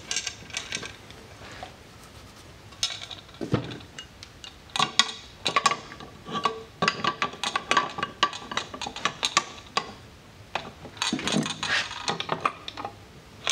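Metal clinking and clicking of an adjustable wrench and nut against a fuel cell fill plate as a nut is tightened onto a -6 bulkhead fitting. Sharp clinks come in several clusters with short quiet gaps between them.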